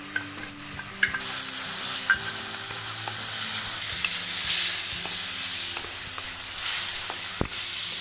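Ginger-garlic paste frying with onions and tomato in hot oil in a pan. It sizzles steadily as it is stirred, louder from about a second in, with scattered sharp clicks of the stirring spoon against the pan and the loudest click near the end.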